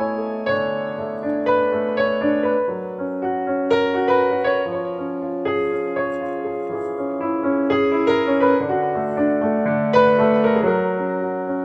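Background piano music, slow and gentle, with held notes and chords changing about once a second.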